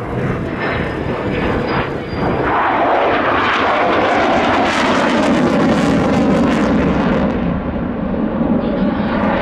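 F-16 Fighting Falcon fighter jet making a pass in afterburner. Its jet noise swells about two seconds in and then holds loud, its pitch sinking as the jet goes by.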